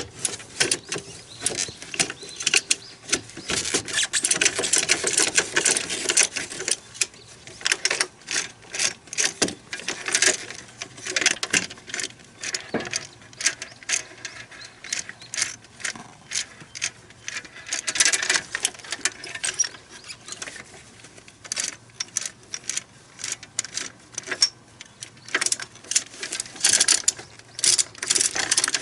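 Ratchet wrench clicking in quick runs with short pauses, as bolts are turned into the joint of a rubber crawler track.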